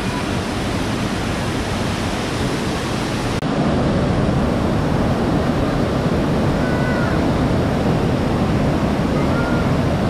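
Steady rush of running water that becomes louder about three and a half seconds in, with a few faint bird chirps.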